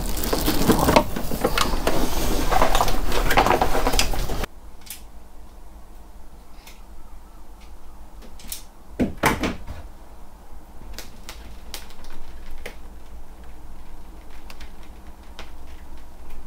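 Electrical cables rustling and scraping as they are pulled through a cable run. After that come scattered small clicks and ticks of wire ends, connectors and a crimping tool being handled, with one louder double snap about nine seconds in.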